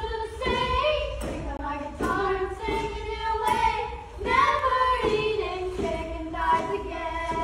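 A small group of children singing a song together, moving through a melody of held notes.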